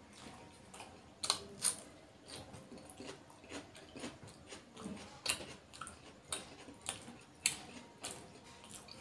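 Close-up mouth sounds of a person eating fish curry and rice by hand: wet chewing with sharp lip-smacks and clicks at irregular intervals, about one every second.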